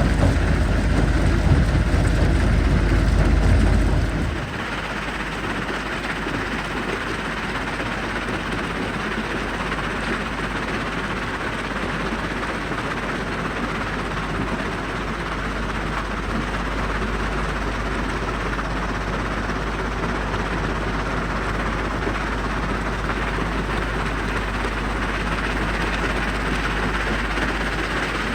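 Mobile jaw crusher and heavy quarry machinery running steadily. A heavy low rumble in the first four seconds drops away suddenly, leaving a steady mechanical din.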